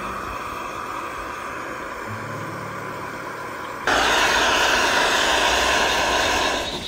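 Soft background music with a few low notes, then about four seconds in a loud, steady hiss from a camping gas canister stove burner burning at full flame. The hiss starts abruptly and dies away shortly before the end.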